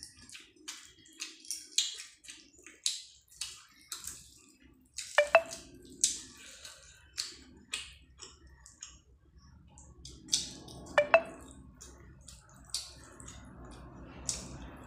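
Close-up mouth sounds of eating rice and chicken curry by hand: a run of wet smacking and chewing clicks, with the squish of fingers mixing rice. Two brief ringing clinks about six seconds apart.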